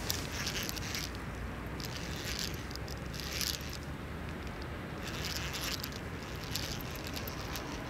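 Wind rumbling on the microphone, with dry reed stalks rustling and crackling close by in short bursts every second or two.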